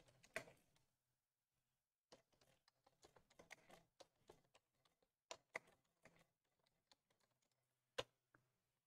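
Faint typing on a computer keyboard: a run of quiet key clicks, with a few sharper keystrokes about five seconds in and one more near the end.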